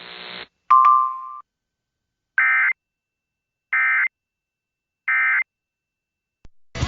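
Weather-radio hiss cutting off, a short beep, then three identical short digital data bursts, evenly spaced, about a second and a half apart: the Emergency Alert System end-of-message code that closes a NOAA Weather Radio warning. Music starts right at the end.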